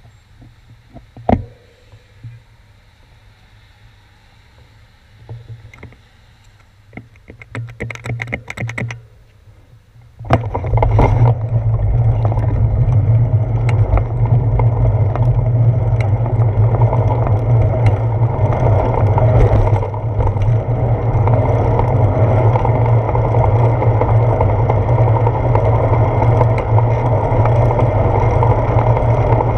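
Wind buffeting the microphone of a handlebar-mounted action camera, with tyre and road rumble, starts suddenly about ten seconds in as the bicycle gets under way and holds steady. Before that the sound is low, with a few sharp clicks and a brief run of fast ticking.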